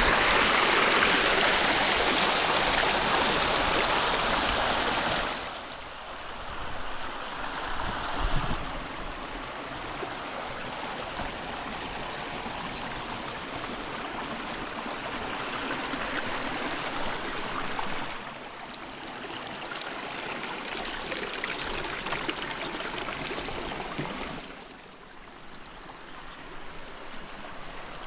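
River water rushing over rocks. It is loudest at first and drops sharply after about five seconds, then grows and falls again as the flow changes. There is a brief low thump about eight seconds in.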